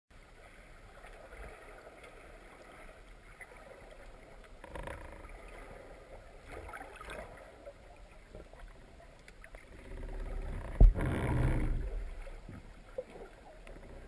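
Underwater water noise heard through a camera housing, faint and even with scattered small clicks. About two-thirds of the way through comes a sharp knock, followed by a second or so of louder, low rushing gurgle.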